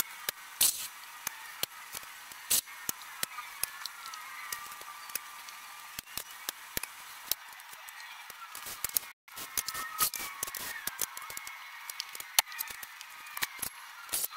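Vinyl wrap film being worked by hand onto a truck door: irregular sharp clicks and crackles over a steady hiss.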